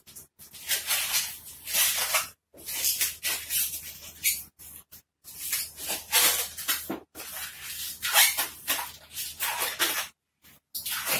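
Long latex modelling balloon being handled and worked by hand: a run of hissing, rubbing bursts with short gaps between them.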